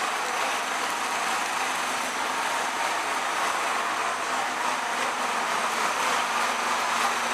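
Steady city street noise on a rain-wet road: traffic and tyres hissing on wet pavement in an even, unbroken wash of sound.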